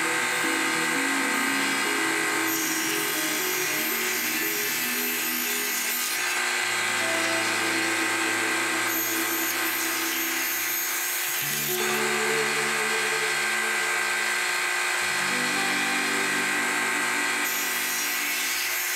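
Background music whose low notes change every second or so, over the steady whine of a table saw running as clear corrugated plastic roofing panels are fed through it.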